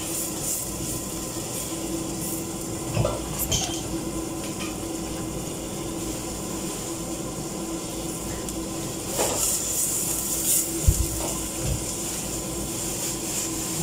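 A plate and utensils clinking and knocking against a stainless steel cooking pot a few times, the sharpest knock about eleven seconds in. Under it is a steady hum and hiss, with faint sizzling of onion and garlic frying in oil.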